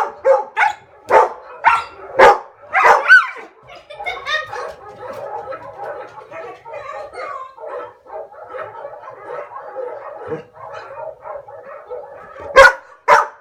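Dogs barking: a quick run of sharp barks in the first three seconds, then a quieter, busier stretch of dog sounds, and loud barks again near the end.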